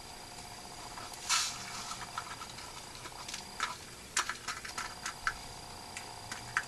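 Irregular light clicks, taps and scrapes of a paper firework aerial shell being cut open and picked apart by hand, with a faint steady high whine underneath.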